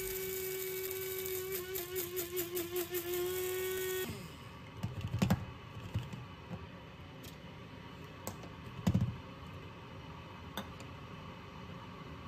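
Small electric blade coffee grinder running steadily for about four seconds, grinding coffee beans, then cutting off. A few knocks follow as the grinder is handled and opened.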